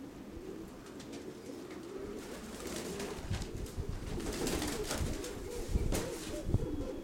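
Nikolaev pigeons cooing continuously, several birds overlapping, with gusts of strong wind rumbling on the microphone from about three seconds in.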